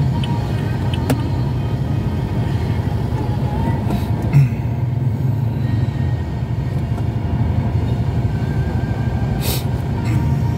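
Steady low rumble of idling and slow-moving traffic heard from inside a car's cabin, with a brief thump about four seconds in.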